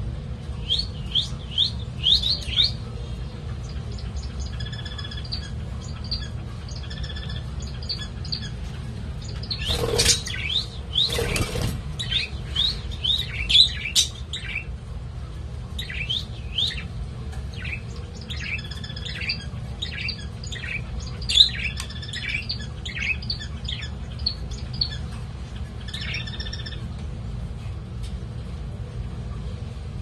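Budgerigar chirping and chattering in many short, quick chirps, with two short rushes of noise about ten and eleven and a half seconds in, over a steady low hum.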